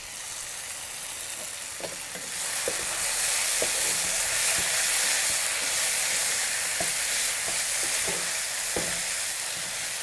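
Beetroot chicken curry sizzling in a non-stick kadai, getting louder about two seconds in as it is stirred with a wooden spatula. The spatula knocks and scrapes against the pan several times.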